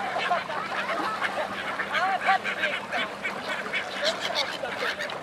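A flock of waterbirds, gulls and ducks, calling over and over in many short overlapping cries, with splashing from the birds on the water.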